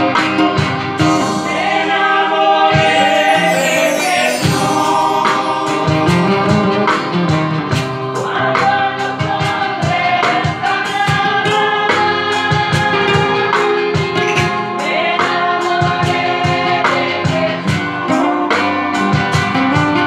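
Church choir of men and women singing a Spanish-language Catholic communion hymn, backed by guitars, with a steady beat about twice a second.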